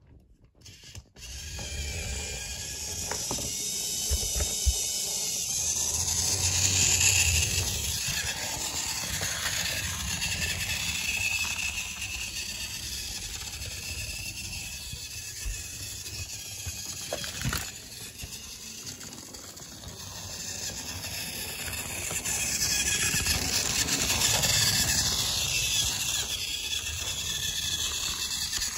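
Battery-powered plastic toy train running along plastic track, its small motor and gears giving a steady whine that swells twice as the train passes close by.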